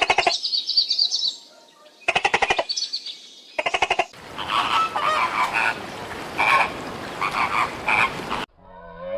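Animal calls in short rattling bursts: three bursts of rapid pulses in the first four seconds, then a dense chorus of overlapping calls that cuts off suddenly about eight and a half seconds in.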